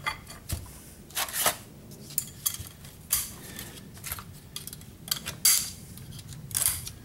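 Steel clutch parts in a TH400 transmission's direct/forward clutch drum clinking and scraping as gloved hands work the clutch pack: about ten short, irregular metallic clicks and scrapes.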